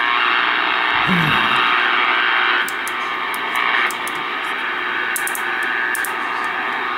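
Dwight D CB base station receiving: steady static from its speaker, with nothing above a sharp upper limit, as the channel selector is stepped. The static drops in level about two and a half seconds in and again about a second later, and a few sharp clicks come in the second half as the channel changes.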